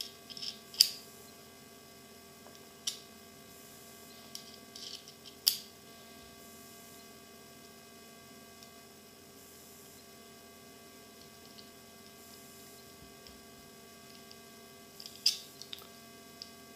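Small steel screwdriver bits clicking sharply against the magnetic bit socket and handle of a folding multitool knife as they are fitted and handled: a handful of distinct clicks, the loudest about a second in, with quieter ticks between. A steady electrical mains hum runs underneath.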